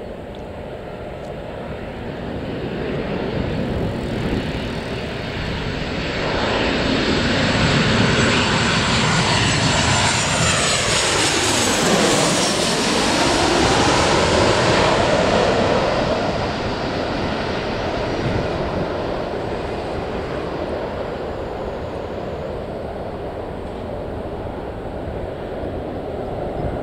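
Airliner passing low overhead near the airport: its engine roar swells, is loudest about ten to fifteen seconds in, with the pitch of the roar sweeping down and back up as it goes over, then fades away.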